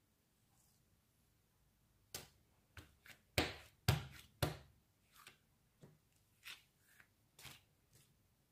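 Hand patting and slapping butter slime flat onto a lace-patterned tablecloth: about a dozen sharp pats starting about two seconds in, the loudest three near the middle, lighter ones toward the end.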